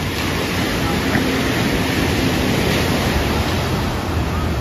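Sea surf washing and breaking on a beach, a steady rushing noise with wind buffeting the microphone.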